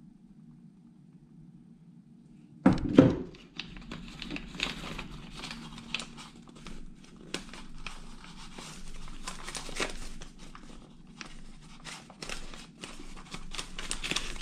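Brown paper food wrapping and a plastic bag crinkling and rustling as takeaway sate parcels are unwrapped by hand. The rustling starts suddenly and loudly about two and a half seconds in, after a low steady room hum, and goes on busily to the end.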